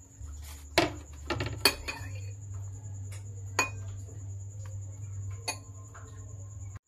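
Metal fork clinking and scraping against a ceramic bowl while tossing a cucumber salad: a few sharp clinks, the loudest about a second in and again shortly after, with lighter taps later.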